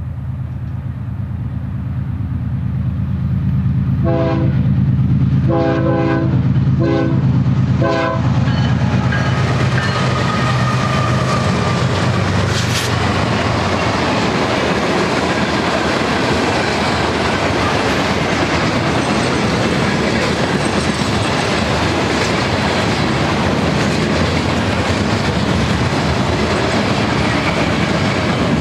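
BNSF freight train led by four GE diesel locomotives, an ES44DC in front. The locomotives' diesel engines rumble low and grow louder as they come by, and the air horn sounds four blasts about four to eight seconds in. The loaded string of freight cars then rolls past with a steady clatter of wheels over the rails.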